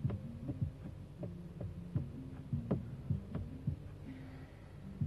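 Bass-heavy music at a low level: a deep bass line that steps between notes, under sharp, regular drum hits.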